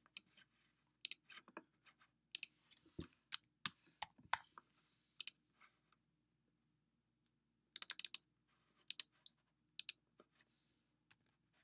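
Computer keyboard keystrokes and mouse clicks: a quick run of clicks in the first half, a short pause, then single clicks and small clusters about a second apart.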